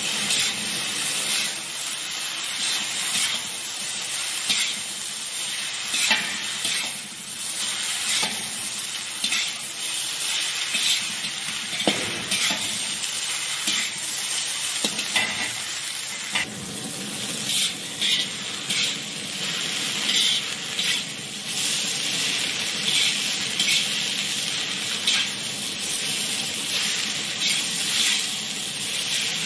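Noodles and vegetables stir-fried in a hot wok: a steady sizzle with repeated scrapes and clinks of a steel spatula against the wok as the noodles are tossed.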